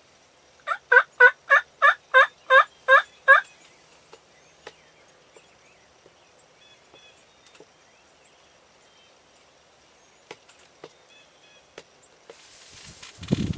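A run of about nine loud turkey yelps, evenly paced at roughly three a second, each note breaking downward in pitch. Near the end comes a rustling noise and a sharp knock.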